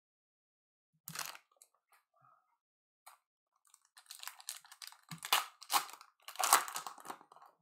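A Topps Stadium Club Chrome card pack's wrapper being torn open and crinkled by hand: a run of crackling rips and crinkles over the last few seconds, after a brief rustle about a second in.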